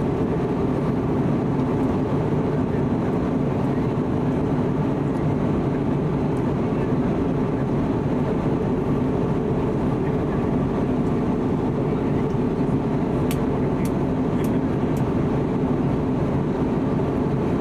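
Steady drone inside an Airbus A320neo passenger cabin in flight: airflow over the fuselage and its two CFM LEAP-1A engines, with a few faint clicks about thirteen to fifteen seconds in.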